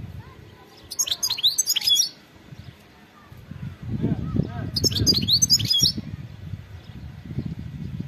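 European goldfinch singing two short bursts of rapid, high twittering chirps and glides, about a second in and again near the middle, over a low rumbling noise.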